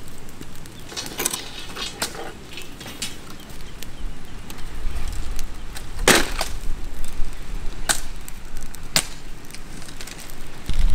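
Wood cracking and snapping: a few sharp cracks spread over several seconds, the loudest about halfway through.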